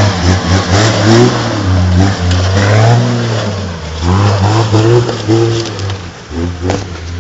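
Toyota LandCruiser 80 Series engine revving up and down in repeated surges as the four-wheel drive climbs over rocks. A single sharp knock comes near the end.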